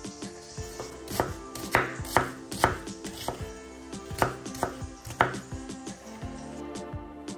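A knife chopping on a cutting board: sharp, unevenly spaced strokes at about two a second that thin out near the end, as a vegetable is cut up for the soup.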